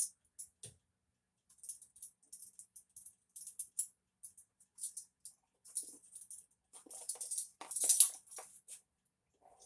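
Light scraping, tapping and rattling of a measuring spoon scooping and levelling baking soda: a run of short, irregular, crisp clicks, with a denser, louder clatter about seven to eight seconds in.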